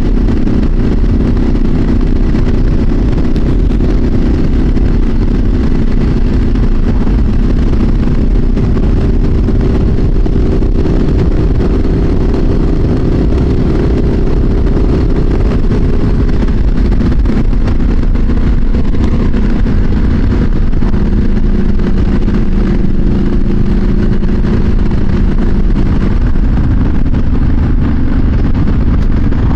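Triumph SS900 motorcycle engine running under way with steady wind rush, heard through a helmet-mounted microphone. The engine note drops in pitch about two-thirds of the way through.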